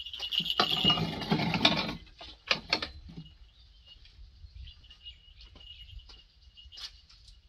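A burst of rough scraping and rubbing lasting about a second and a half, followed by a few sharp clicks: handling noise as the camera is set down. A faint, steady high tone sits underneath.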